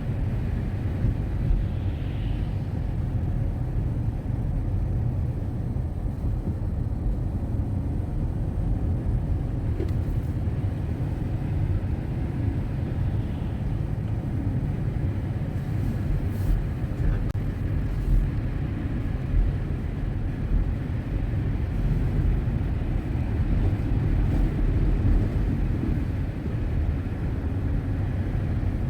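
Steady low rumble of a car driving, its road and engine noise running evenly throughout.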